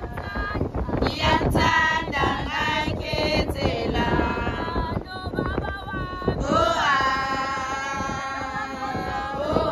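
Women and girls singing together in high voices, one long note held near the end, with sharp percussive hits scattered through it.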